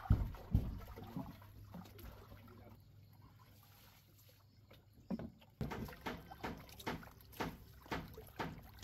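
Hands sloshing and rubbing pieces of raw meat in a plastic basin of water fed by a hose. From about five seconds in there is a run of short splashes, roughly two a second. Two dull knocks come in the first second.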